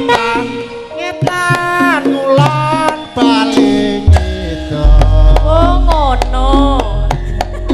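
Javanese gamelan (karawitan) music in Sragenan style: a sung line sliding between notes over steady metallophone tones and sharp hand-drum (kendang) strokes. A deep bass tone comes in about four seconds in and carries on.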